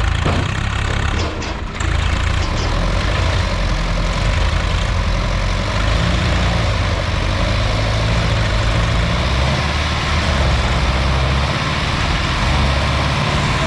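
Tractor diesel engine running steadily, with a couple of short knocks in the first two seconds.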